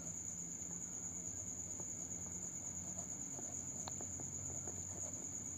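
A steady high-pitched whine, like crickets trilling, over a faint low hum, with a few soft scratches and ticks of a pen writing on notebook paper.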